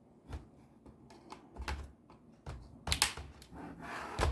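Irregular plastic clicks and taps from a laptop's casing being handled, with a cluster of sharper clicks about three seconds in and a short scrape near the end.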